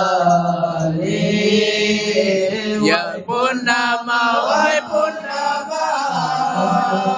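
Male voices singing a Malay qasidah into microphones, the melody bending through wavering, ornamented notes over a steady low held note.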